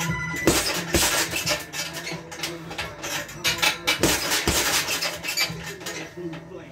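Boxing gloves striking a heavy punching bag in double jabs: two pairs of thuds, the punches in each pair about half a second apart, the first pair about half a second in and the second about four seconds in.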